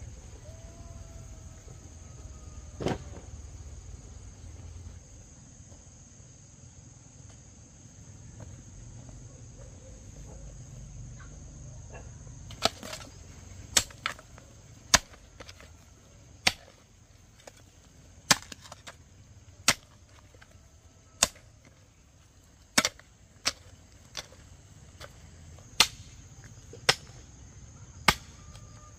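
Hand hoe chopping into dry, stony soil: sharp blade strikes about once a second, starting about halfway through, with one earlier knock about three seconds in. A steady high insect drone, like crickets, runs underneath.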